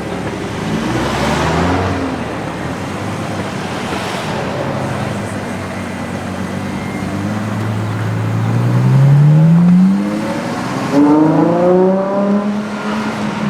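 A high-performance car engine accelerating hard, its pitch climbing steadily to a loud peak about nine seconds in. It eases off briefly, then comes back in sharply about eleven seconds in and rises again, as after an upshift.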